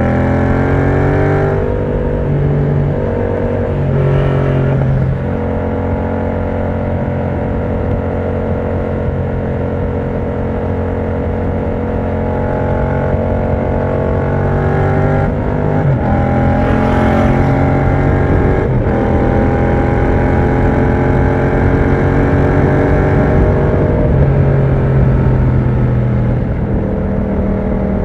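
Yamaha MT-07's parallel-twin engine through an aftermarket exhaust with the dB killer removed, heard while riding: it rises in pitch at the start, then runs at a steady engine speed for long stretches, with a few brief changes in pitch and another rise later on.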